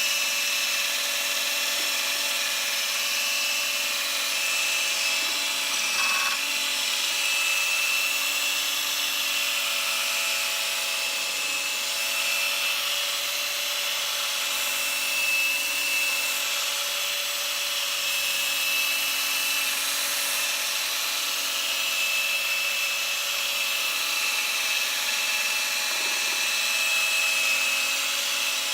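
Electric polishing machine running steadily with an even motor whine, buffing polish into a vacuum cleaner's plastic housing.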